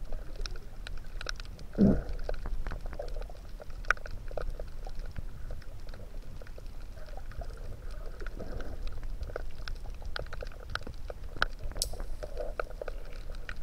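Underwater ambience recorded in the water itself: a dense, irregular crackle of sharp clicks over a steady low rumble of water, with one brief low whoosh about two seconds in.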